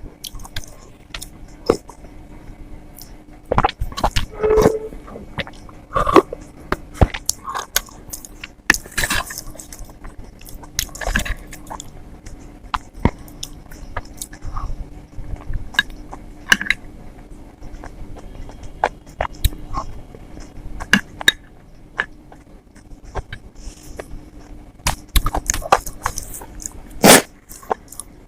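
Close-miked mouth sounds of someone chewing idli with sambar and chutney: irregular wet smacks and soft clicks of a soft, sauced food.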